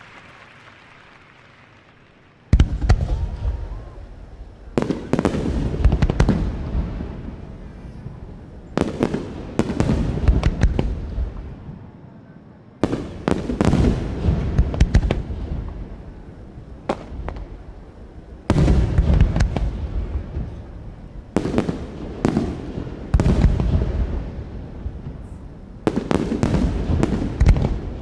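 Aerial fireworks shells bursting in quick clusters of sharp booms, each cluster trailing off in rumbling echo and crackle. The bursts begin about two and a half seconds in and recur every few seconds.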